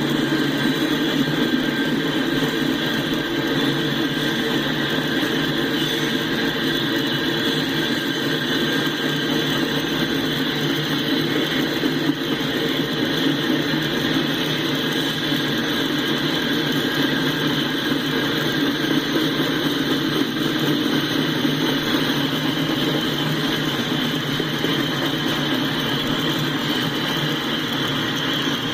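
Loaded ballast hopper cars of a CSX freight train rolling past: a steady sound of steel wheels on rail, with a faint high steady tone over it.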